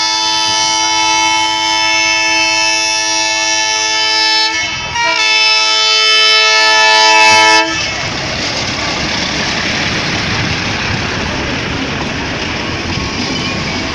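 Darjeeling Himalayan Railway narrow-gauge diesel locomotive sounding a long steady horn blast, broken once briefly about halfway through and then resuming louder. The horn stops about eight seconds in, giving way to the rumble and clatter of the toy train's coaches rolling past close by.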